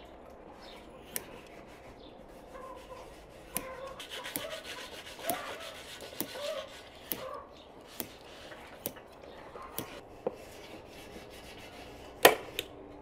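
Scissors cutting through a thick foam sheet: a series of sharp snips, about one a second, with rubbing and scraping of the blades through the foam, and one louder sharp clack near the end.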